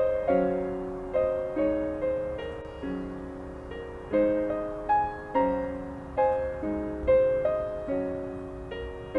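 Slow background piano music: single notes and chords struck one after another, each left to fade before the next.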